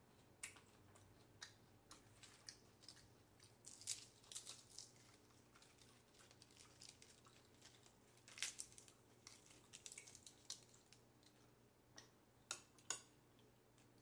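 Near silence with faint, scattered crinkles and soft clicks of romaine lettuce leaves being handled and folded into a wrap, and two sharper clicks near the end.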